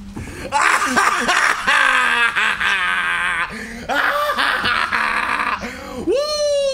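A man's acted drunken laughter and cries: loud bursts of laughing, a long quavering laugh about three seconds in, and a drawn-out falling yell near the end.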